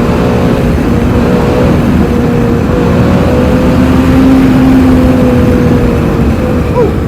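Shelby GT350's 5.2-litre flat-plane-crank V8 running loud at a steady, moderate engine speed, its exhaust drone swelling a little about four seconds in and easing slightly near the end.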